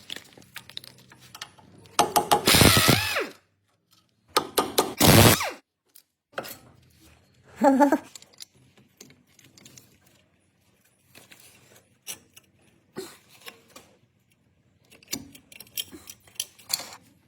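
Tool work on a car's front brake assembly. Two loud bursts of a power tool, one about two seconds in and one about four seconds in, are followed by scattered clicks and knocks of tools on metal.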